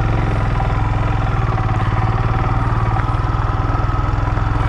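Royal Enfield Himalayan's single-cylinder engine running with a steady, even beat.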